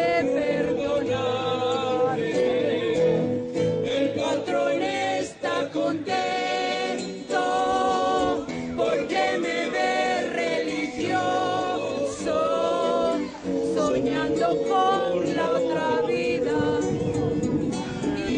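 Live performance by a vocal quintet singing together in harmony, with a steady held note beneath the voices.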